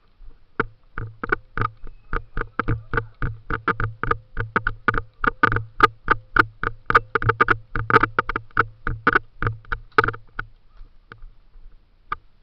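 Running footsteps picked up by a body-worn camera, with gear jostling at each stride, about four steps a second. They stop about ten seconds in.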